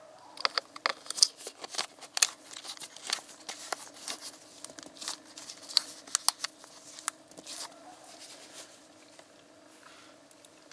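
Plastic screw cap being fitted and screwed back onto a plastic Pennzoil motor-oil bottle by gloved hands, with the bottle handled: a run of sharp, irregular plastic clicks and crackles that thins out and stops about eight seconds in.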